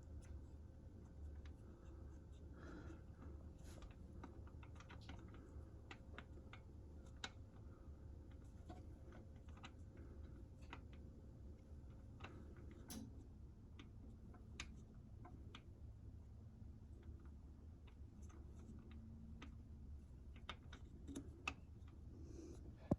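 Near silence with faint, irregular small clicks and scrapes: hands working in the engine bay, threading a new oil pressure sensor on by hand.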